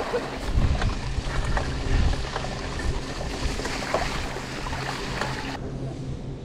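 Mountain bike riding over a rough trail, heard from a helmet or chest camera: rolling tyre noise with sharp rattling knocks from the bike and wind buffeting the microphone. About a second from the end the hiss drops away, leaving a duller sound with a steady low hum.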